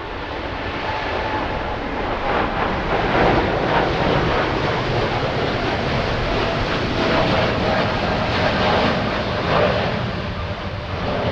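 Boeing 787 turbofan engine at climb thrust: a steady, loud rush of engine and air noise with a faint held tone, building a little in the first couple of seconds.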